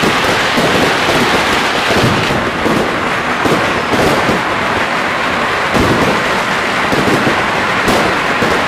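Firecrackers and fireworks going off all at once in a dense, unbroken crackle, with sharper bangs standing out every second or so.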